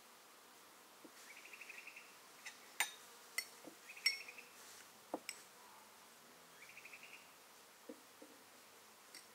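Glassware and dishes clinking in a few sharp clicks, the loudest between about three and five seconds in. Between them, short pulsed chirping trills repeat three times.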